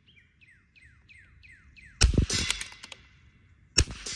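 Bolt-action .22 LR rimfire rifle (custom Vudoo) firing twice, about two seconds apart, each shot a sharp crack that dies away quickly. Before the first shot a bird calls a quick run of six or seven descending chirps.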